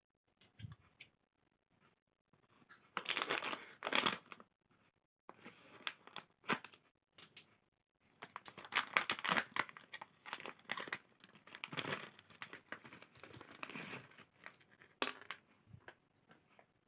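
Plastic snack packet of Kacang Garuda Rosta crinkling and being torn open, in irregular bursts of crackling with a sharp snap near the end.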